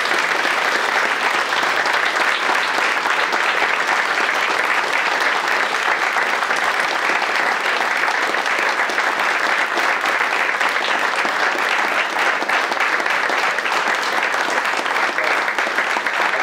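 An audience applauding, steady and sustained.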